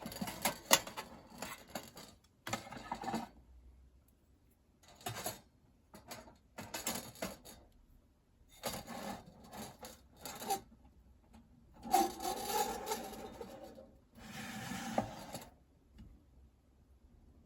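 Metal parts of a compact fire pit scraping and rubbing against each other in several short bursts as it is handled, some with a faint metallic ring.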